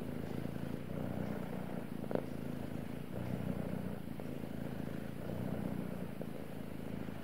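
Ginger house cat purring steadily, a continuous low rumble, with a single brief click about two seconds in.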